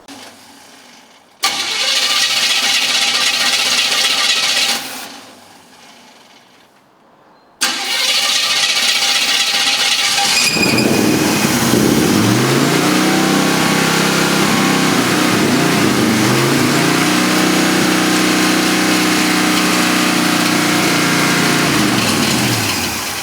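First start of a 1953 GMC 100 pickup's engine after restoration. The starter cranks it for about three seconds and stops, then cranks again; the engine catches about ten seconds in. It runs with its revs rising and falling, then shuts off near the end.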